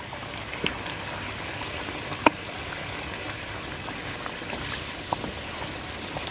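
Chicken and spices frying in a pot over a high flame: a steady sizzle with a few sharp pops and spatters, the loudest about two seconds in.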